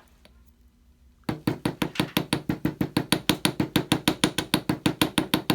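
Rapid, even hammering of brass wire with a chasing hammer on a bench block, about eight light metallic strikes a second, starting about a second in: the wire is being flattened for decoration.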